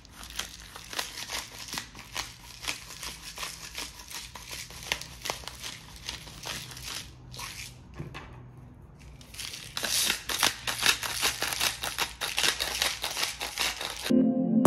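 Hand-held pepper grinder being twisted, a rapid gritty crackle as peppercorns are ground. It comes in two bouts, the second louder, with a pause of about two seconds between them.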